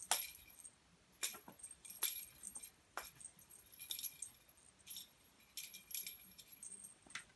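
A kitten's cat toy jingling in short irregular shakes, roughly one a second, each with a brief high ringing.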